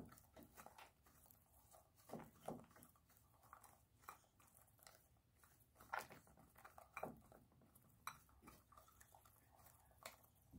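Chickens pecking at a bowl of chopped greens and mash: faint, irregular taps and crunches as their beaks strike the bowl and tear the food.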